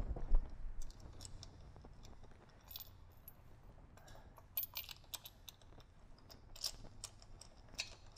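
Light, scattered metallic clicks and small rattles of a spark plug socket and spark plug being turned by hand into a motorcycle's cylinder head, with a slightly louder knock near the start.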